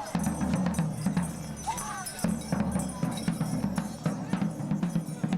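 Music with drums and jingling percussion, a steady pulsing low part under many sharp strikes.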